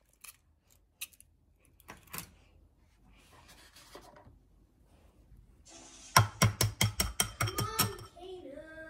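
An egg cracked against the rim of a glass bowl: a few sharp taps in the first two seconds, the loudest about two seconds in. From about six seconds in, a loud run of short, quick voice sounds, about five a second, lasting about two seconds.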